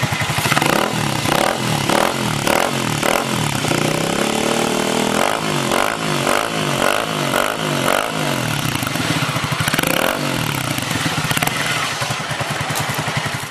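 Kasinski Mirage 150 motorcycle engine revved through a Scorpion sport exhaust, the throttle blipped up and down again and again, with one longer climb in revs about four seconds in.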